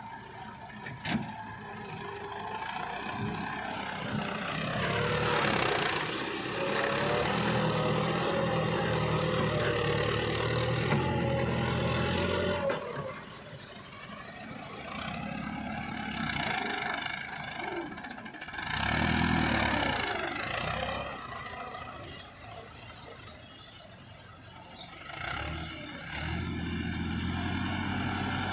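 Front-loader tractor's diesel engine working under load, revving up and falling back several times as the bucket scoops and lifts, with lulls about halfway through and again shortly before the end.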